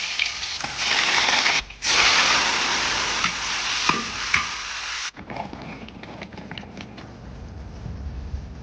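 Steady hiss of water in a cooking pot as beef is blanched, with a brief break partway and a sudden cut-off about five seconds in. Quieter light clicks and knocks follow.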